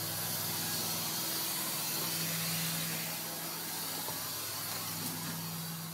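Carpet-cleaning extraction machine running: a steady hum under a constant hiss of air.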